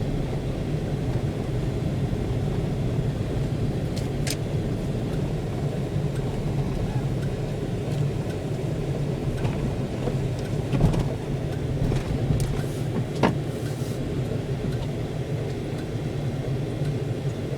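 Steady drone of a car heard from inside the cabin while driving on slushy snow: engine and tyre rumble, with a few brief knocks.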